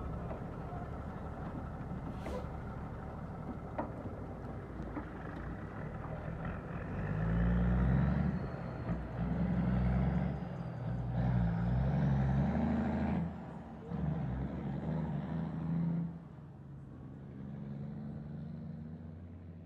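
Loaded diesel dump truck pulling away and accelerating through the gears: the engine runs steadily at first, then about seven seconds in pulls hard in several surges with short dips between them as it shifts, a faint whine rising above it. It fades away near the end as the truck drives off.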